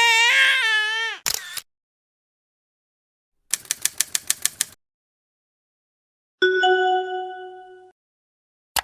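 A string of short cartoon sound effects: a wavering, whimpering tone, a quick swish, a fast run of about ten clicks like typing, then a bell-like chime that fades over about a second and a half.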